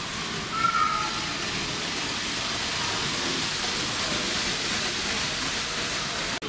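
N gauge model train running on the track past the microphone: a steady hiss of wheels on rail and the motor's whir, swelling as it passes about three to four seconds in. A short high tone sounds about half a second in.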